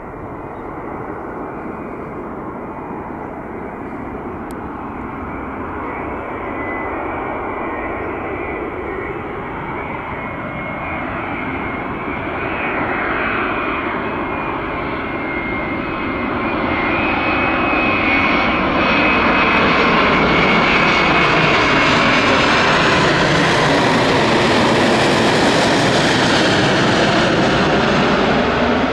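Boeing 787-9 airliner on final approach, its jet engines growing steadily louder as it nears and then passes overhead, loudest over the last third. A steady high whine sits over the engine noise.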